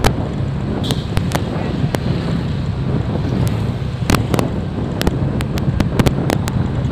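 Motorcycle engine running steadily with wind rushing over the microphone while riding. Many sharp cracks are scattered through it, several bunched together in the second half.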